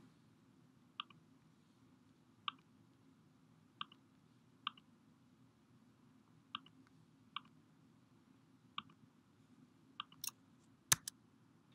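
Faint computer mouse clicks, about ten spaced irregularly, as options are picked from dropdown menus; the last few, near the end, are sharper.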